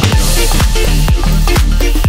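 Electronic dance music with a steady four-on-the-floor kick drum, deep bass and synth chords.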